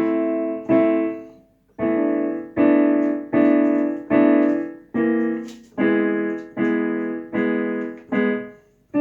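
Keyboard playing a run of block chords, each struck and left to die away, about one a second, with a brief pause a couple of seconds in.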